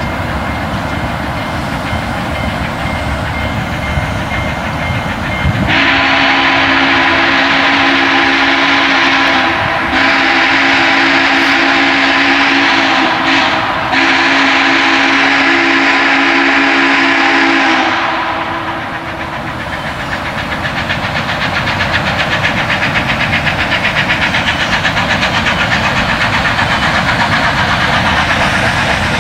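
Union Pacific 844's steam chime whistle sounding three long blasts, each several seconds, with short breaks between them. The approaching steam locomotive's running then sets up a fast, even beat.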